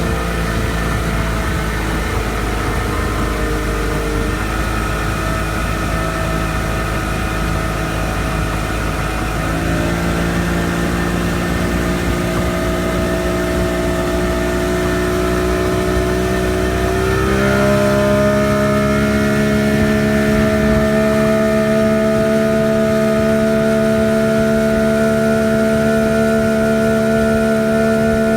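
1989 Bayliner boat's engine running on a test run before a tune-up, its speed rising in two steps, about a third of the way in and again past halfway, then holding steady at the higher speed.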